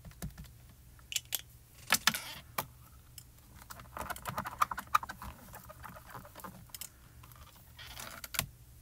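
Scattered light clicks and taps with stretches of rustling from hands working a stamp-positioning platform, pressing the inked stamp onto the card and handling the platform's lid. One sharp click comes just before the end.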